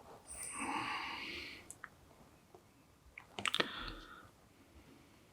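A soft breathy sound, then a short cluster of small clicks about three and a half seconds in, typical of small tools tapping on a circuit board during soldering.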